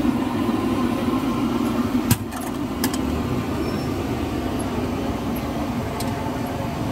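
Steady background noise of a busy hawker noodle stall, with a sharp knock of a bowl or utensil about two seconds in and a few lighter clinks later.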